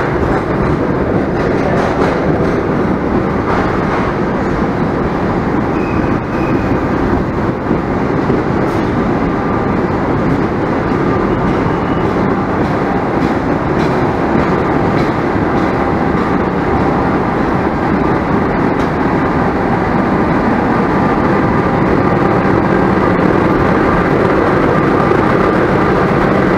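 Diesel locomotive of a standing passenger train, its engine running steadily at idle; a loud, even noise with no clear rhythm.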